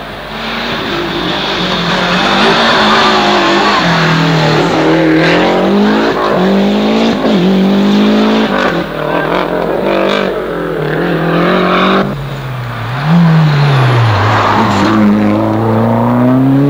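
Rally cars driven flat out on a tarmac special stage, their engines revving up and dropping again and again through gear changes and lifts into the bends. About twelve seconds in the sound cuts abruptly to another car, whose engine dips and climbs hard as it powers out of a hairpin.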